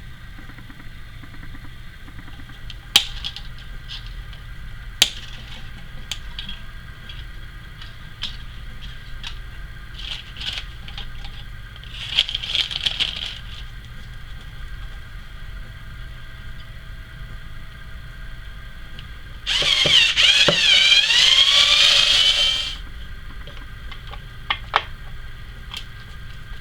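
Workbench handling and tool sounds: scattered sharp clicks and knocks, a brief scraping stretch midway, then about three seconds of loud whirring with a wavering pitch in the last third.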